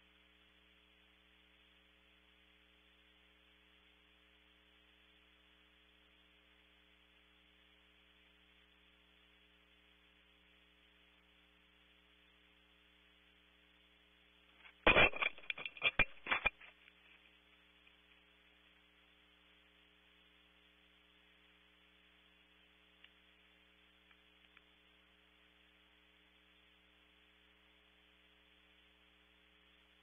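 Barn owl landing at its nest cavity and clambering in: a cluster of knocks and scrapes against wood lasting about two seconds, midway, over a faint steady electrical hum and hiss.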